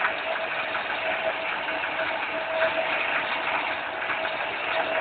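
TUS 16 lathe converted to CNC running, its turret tool turning a metal workpiece: a steady machining noise with a faint whine that comes and goes.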